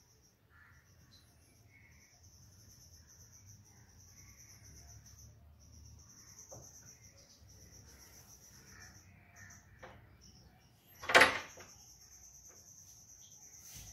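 Faint, steady high-pitched chirring of insects such as crickets, with one short, loud bang about eleven seconds in.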